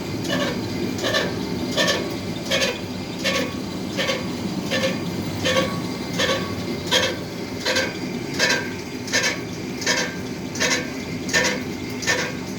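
Lathe running with a steady hum and a sharp metallic clink that repeats evenly, about every three-quarters of a second, each clink ringing briefly.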